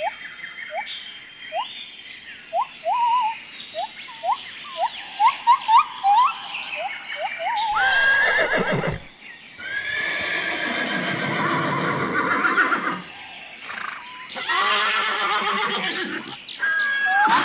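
Horse neighing and whinnying, three calls in the second half. Before them comes a run of quick, short rising chirps.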